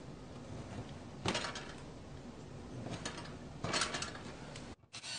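A steel awl is pushed and twisted into a wooden holder against the plywood to punch pilot holes for screws. It makes a few short scrapes and clicks, about a second in, at three seconds and again just before four seconds.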